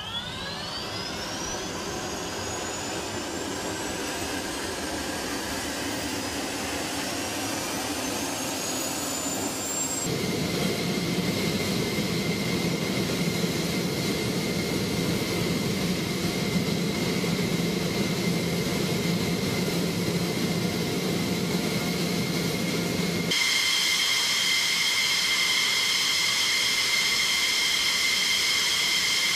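F-16 fighter jet engines starting and running on the ground: a turbine whine climbs steadily in pitch as an engine spools up, then gives way to a steady high-pitched whine with several clear tones. The sound changes abruptly about ten seconds in and again near the end, getting louder.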